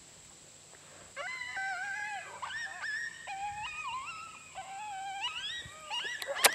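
Coyote vocalizations: a run of high, wavering whines and yips that slide up and down in repeated phrases, starting about a second in, with a sharp louder burst right at the end.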